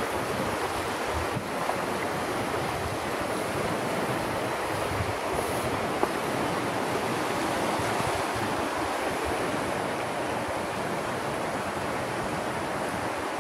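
Steady rush of river water flowing past a rocky bank, with wind buffeting the microphone. One brief sharp tap about six seconds in.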